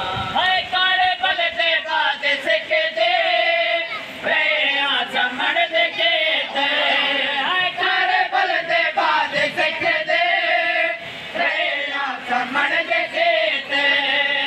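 A crowd of men chanting a mourning lament (nauha) together in Saraiki/Punjabi, many voices singing the refrain in unison.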